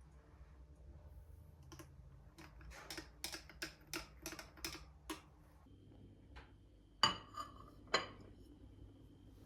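A quick run of light clicks, about three a second, then two sharp ringing clinks of glass or dishes about a second apart, under a faint steady hum.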